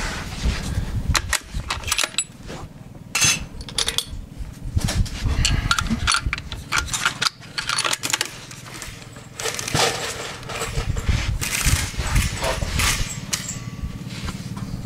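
Handling noise from a Savage 111 bolt-action rifle between shots: irregular clicks and light metallic rattles over a steady low rumble.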